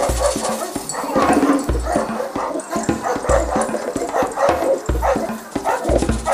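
Boerboels barking over background music with a deep, regular bass beat.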